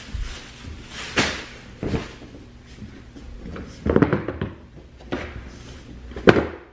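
Handling noise from a cardboard shoebox and a shopping bag: several sharp knocks and thuds with light rustling, a cluster of them about four seconds in and the loudest near the end.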